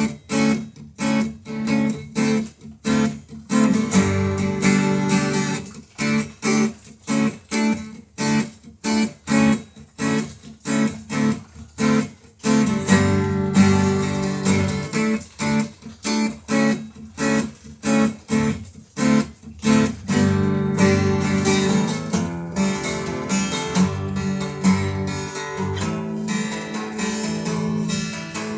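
Twelve-string acoustic guitar being strummed in short, damped chords, about two a second. About twenty seconds in, the playing turns to fuller, ringing strumming.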